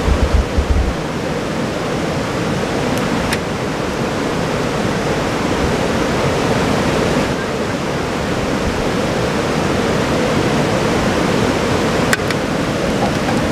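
A stream rushing steadily, with a few faint clicks and some low thumps near the start.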